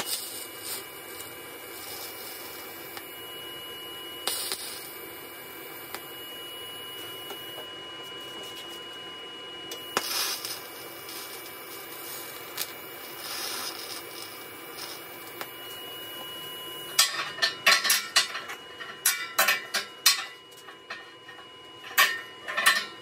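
TIG welding arc hissing steadily, with a faint steady high tone, while the filler rod is fed by hand. About seventeen seconds in the arc stops and a run of sharp metallic clanks and rattles follows: steel chain and workpiece handled on the steel welding table.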